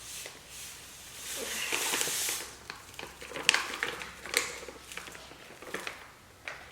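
Granular dishwasher powder poured from a plastic pouch into a bowl: a hiss about a second and a half long, followed by a few light taps and rustles of the bag.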